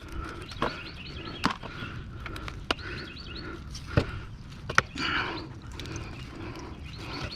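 Scattered sharp metal knocks and clinks from steel and copper parts of a window air conditioner being worked apart by hand, the loudest about four and five seconds in. Birds chirp in the background.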